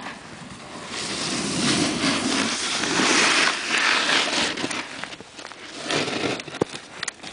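Rough, crackling rush of snow and clothing rubbing against the camera microphone, swelling for a few seconds, then scattered knocks and scrapes as the camera is handled in the snow.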